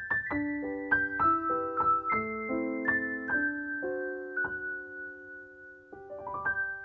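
Background music: a gentle piano melody of single struck notes that ring and fade, with a quick run of rising notes near the end.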